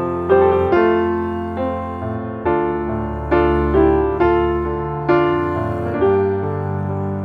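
Background music of slow piano chords, struck about once a second and each fading away.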